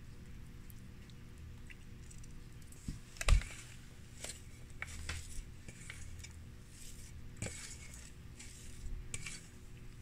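A hand mixing a moist, soaked-poha mixture on a steel plate: soft squishing and scattered light clicks of fingers against the metal plate, with one louder knock a little over three seconds in.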